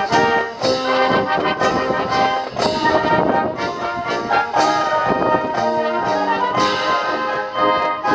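Military brass band playing: trumpets and trombones sound sustained chords, with sharp new note attacks every half second or so.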